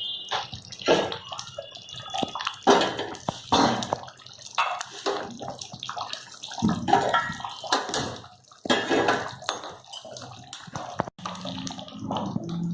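Thick pav bhaji bubbling and spluttering in the pan on low heat after butter has been added, with irregular plopping bursts.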